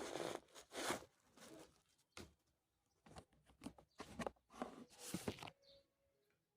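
Rustling and scraping of a shoe's packaging and the shoes being handled, with several short knocks.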